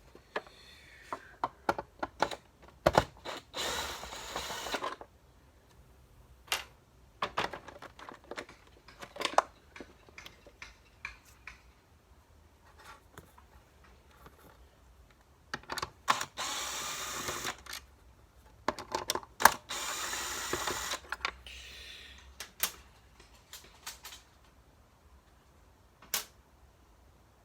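Plastic parts of a Hoover WindTunnel upright vacuum being handled and taken apart: scattered sharp clicks and knocks, with three longer noisy stretches of a second or two each.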